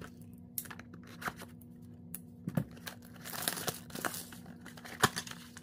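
Hands opening a sealed cardboard trading-card blaster box: packaging crinkling and tearing, with scattered small clicks and a sharper tap about five seconds in.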